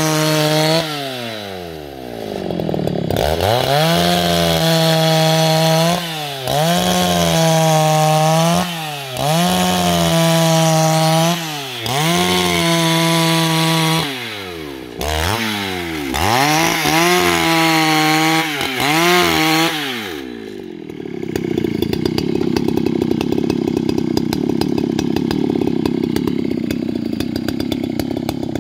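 Husqvarna 281 XP two-stroke chainsaw ripping a timber lengthwise along the grain, its engine revving high and dipping again every two to three seconds as it cuts. About 20 seconds in it drops to a low idle.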